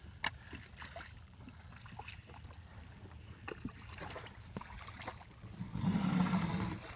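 Someone wading through shallow river water beside a boat: sloshing steps with scattered knocks and clicks, and a louder spell of splashing about six seconds in.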